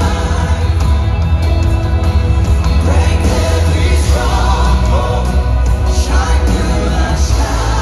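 Worship team singing a contemporary worship song live with a band: several voices into microphones over keyboard and strong, steady bass.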